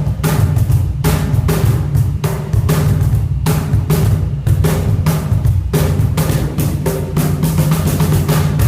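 Handmade cajon being played in a steady, fast groove: deep bass tones mixed with many sharp slaps.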